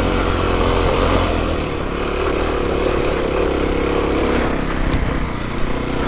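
Kawasaki KLX250's single-cylinder four-stroke engine pulling steadily under load up a rocky hill climb, labouring on gearing the rider finds too tall. A brief sharp tick about five seconds in.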